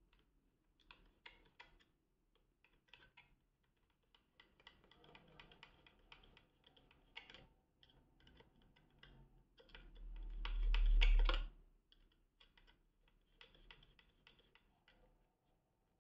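Small screwdriver turning a screw in the plastic battery cover of an Ecowitt WittBoy weather-sensor housing: faint, irregular clicks and scrapes of the screw and the plastic being handled. About ten seconds in comes a louder rubbing bump that lasts about a second and a half.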